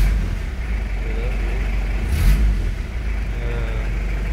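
Isuzu Panther's non-turbo diesel engine idling steadily, heard from inside the cab, with a brief hiss about two seconds in.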